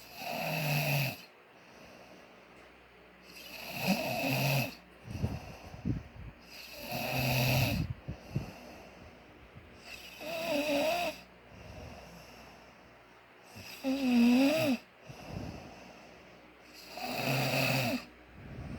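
Snoring: six snores evenly spaced about three and a half seconds apart, two of them with a wavering, whistling tone, and soft breathing in between.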